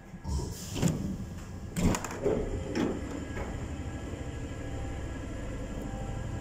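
MF 67 Métro car's sliding doors opening after the manual latch handle is lifted, with a few loud clunks in the first three seconds, then the steady low rumble of the stopped train.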